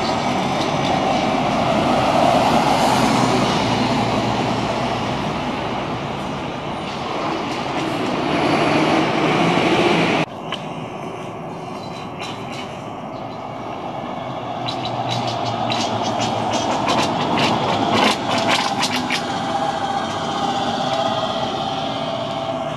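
Electric trolleybuses moving through the station loop: a steady whir of the electric drive with tyre noise, which cuts off abruptly about ten seconds in. About five seconds later comes a quick run of sharp metallic clacks, the trolley pole shoes running through the overhead wire switches and crossings.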